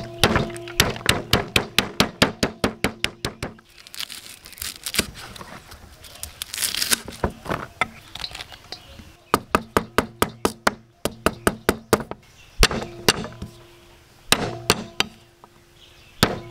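Large knife chopping on a thick round wooden chopping block, cutting lemongrass and galangal. The chopping comes in quick runs of strikes about six a second, with pauses between runs.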